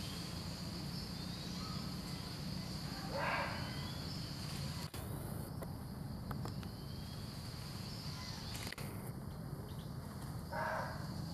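Forest ambience: a steady high insect drone over a low hum, with two short animal calls, one about three seconds in and one near the end.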